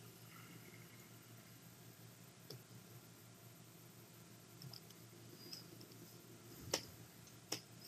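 Computer mouse clicking, two sharp clicks near the end with a few fainter ticks before them, over faint room tone.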